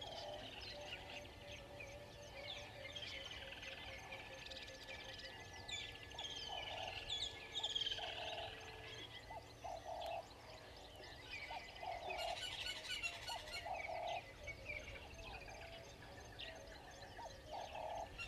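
Many wild birds calling and chirping together, with a short low call repeating about once a second underneath. A quick run of ticks stands out about two-thirds of the way through.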